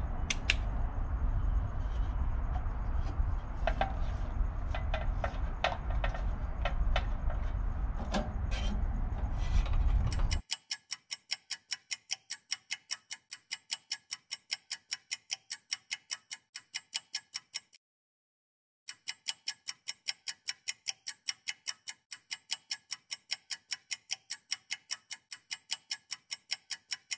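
Low wind rumble on the microphone with light clicks of a screwdriver working screws out of a metal time-switch box. About ten seconds in, all of this cuts out abruptly to a clean clock-ticking sound effect, about four ticks a second, which breaks off for about a second and then resumes.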